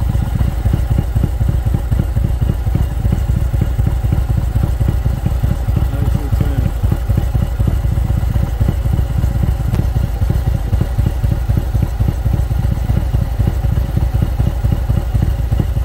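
Harley-Davidson Milwaukee-Eight 114 V-twin, fitted with an SS475 cam, idling at about 900 RPM with a steady low pulsing beat.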